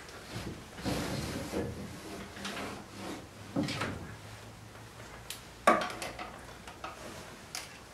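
Irregular knocks, rubs and rustles close to the microphone, the loudest a single sharp knock a little under six seconds in.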